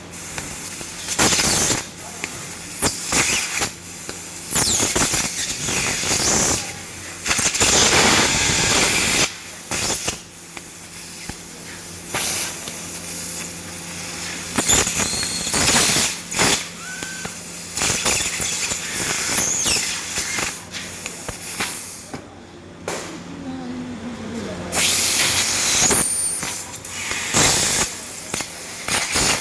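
Fiber laser cutter at work, its cutting head hissing in short irregular bursts over a steady low machine hum.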